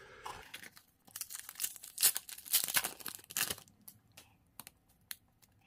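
Upper Deck hockey card pack wrapper crinkling and tearing open, in several rustling bursts, followed by a few light clicks as the cards are handled.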